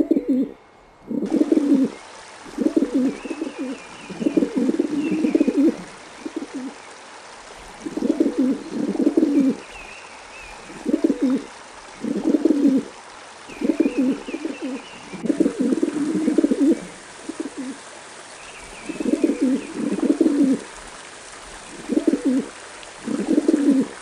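Rock pigeons cooing: low, throaty coo phrases repeated every second or two. Faint high chirps from another bird come now and then over a steady hiss.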